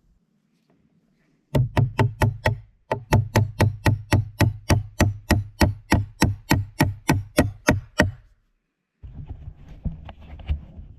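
Small multitool hammer driving a small nail into a wooden 2x6 with quick, sharp taps: a short run of about six strikes, a brief pause, then a steady run of about seventeen more at roughly three a second. Softer scuffing sounds follow near the end.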